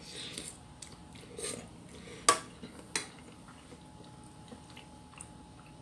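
Eating sounds: a spoon or fork clinks sharply against a bowl twice, about two and three seconds in, amid faint, soft eating noises.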